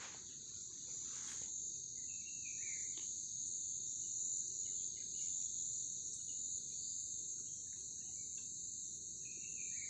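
Steady high-pitched chorus of forest insects such as crickets or cicadas, with a few faint short chirps over it.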